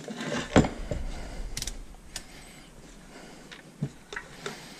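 Handling noises on a workbench: a sharp click, a heavier thump about half a second in, then scattered light clicks and taps as the multimeter and its test leads are picked up.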